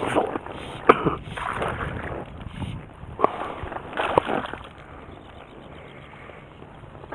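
Water splashing and sloshing around a float tube in several short bursts, with a few sharp splashes, as a hooked bass is played on a fly rod; quieter from about halfway through.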